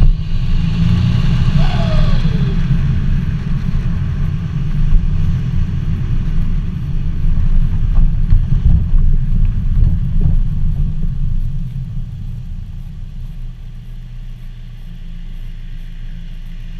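Straight-through exhaust of a VW Golf Mk5 PD140 TDI diesel, running without muffler or DPF, giving a loud deep rumble that swells and falls under throttle. About twelve seconds in it eases off to a quieter, steadier rumble. A brief falling whistle sounds about two seconds in.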